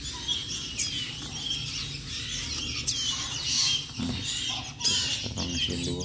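Hand-fed songbird nestlings chirping: a run of short, high chirps, one after another.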